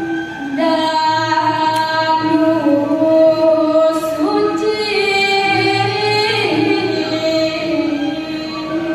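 A woman singing a Balinese pupuh ginanti melody, holding long notes that slide from pitch to pitch. A low pulsing tone comes and goes underneath.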